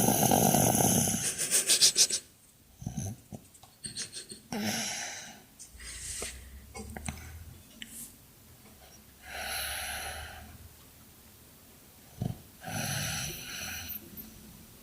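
Snoring in a slow breathing rhythm: a loud, rattling snore in the first two seconds, then several quieter snoring breaths a few seconds apart.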